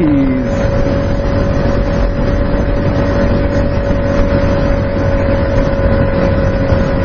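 Kawasaki ZX-6R 636 inline-four engine running at steady revs while the motorcycle cruises, its note holding one constant pitch over a steady low rush of road and wind noise.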